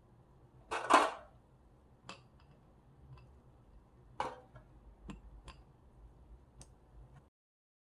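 Ice cubes set by hand into a glass bowl of fruit and soda, clinking against the glass: a louder clink about a second in, then several light ticks and clinks.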